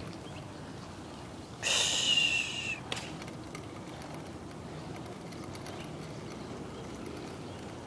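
Bicycle ridden along a paved street: a steady rumble of tyres and wind on the microphone. About a second and a half in comes a loud, high squeal lasting about a second, falling slightly in pitch.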